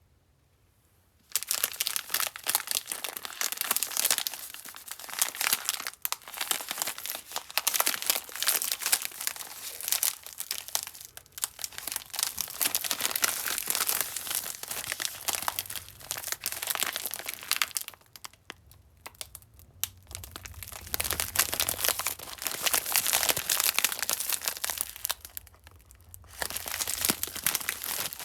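Candy wrapper being crinkled and torn open, starting about a second in and going on in dense spells, with two short pauses late on.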